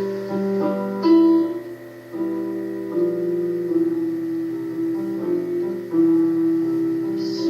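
Electronic keyboard playing slow, sustained piano-voiced chords, an instrumental introduction before the singing comes in.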